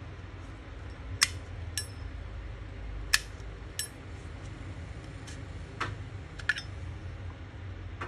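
Sharp metallic clicks of a 1946 nickel Zippo lighter being handled, its hinged lid and insert knocking and snapping: about seven clicks, several in pairs, over a low steady hum.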